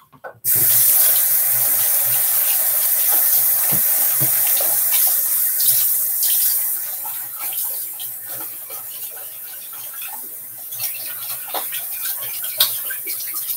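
Bathroom sink tap turned on and running into the basin, with splashing and small knocks as things are rinsed under it. The flow starts about half a second in and gets softer after about seven seconds.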